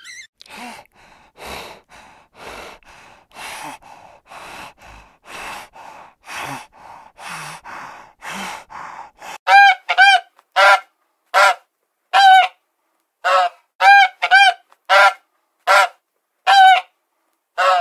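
Soft breathy huffs about once a second, then, about halfway through, a run of a dozen or so loud, short, repeated honks from waterfowl.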